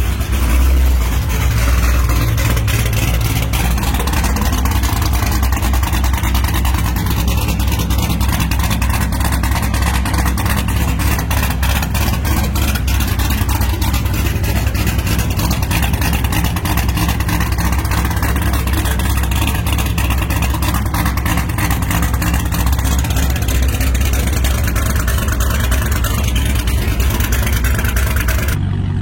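Corvette V8 engine running steadily, freshly back together after a harmonic balancer job; it is very loud and still needs to be tuned.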